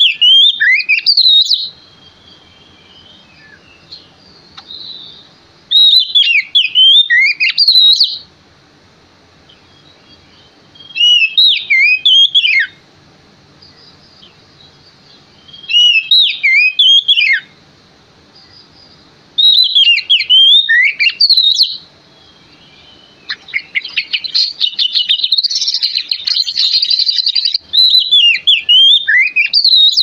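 Male Oriental magpie-robin (kacer) in full song: loud whistled phrases that swoop up and down in pitch, each about two seconds long, coming every four to five seconds with pauses between. Near the end the song runs on longer and fuller.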